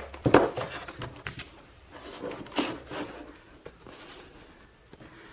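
Plastic file folders packed with sticker sheets being handled: a few scattered rustles and soft knocks, loudest in the first second and growing quieter toward the end.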